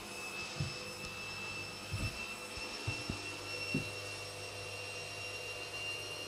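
Front-loading washing machine running with a steady whine and low hum. A few soft low knocks come from the phone being handled as it moves.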